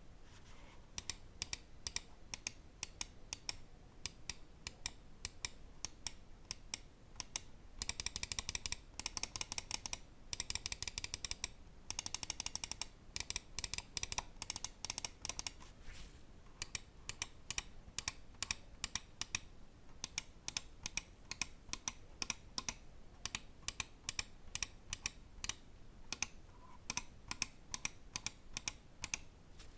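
Pulsar Xlite V3 Medium (Size 2) gaming mouse clicking: single sharp clicks a couple of times a second, with two spells of rapid-fire clicking about eight and twelve seconds in.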